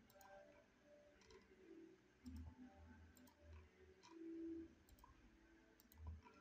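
Faint computer mouse clicks, a handful scattered across several seconds, over quiet room tone.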